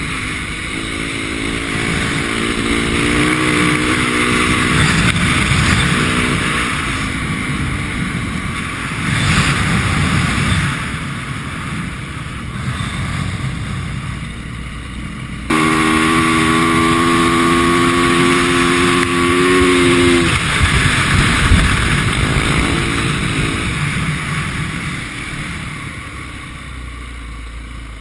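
450cc four-stroke dirt bike engine running and revving while riding on ice: the engine climbs in pitch over the first few seconds and eases off. About fifteen seconds in a louder, steady engine note cuts in and holds for about five seconds, then drops away, and the sound fades near the end.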